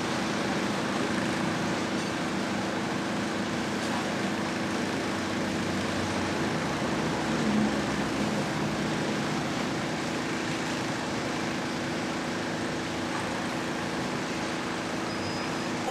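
Steady low machine hum under an even hiss, unchanging throughout.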